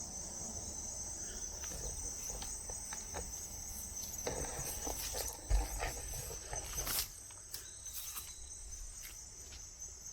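Steady high-pitched chorus of insects in the woods, with scattered rustles and snaps from movement through brush and a single low thump about five and a half seconds in.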